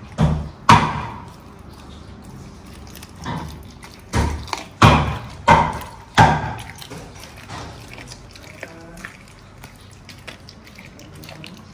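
Sharp thuds and knocks, about seven in the first six seconds, some with a brief ring: a large dog dropping and picking up raw chicken pieces on a tiled floor and bumping a stainless steel bowl. Only faint small ticks and clicks follow.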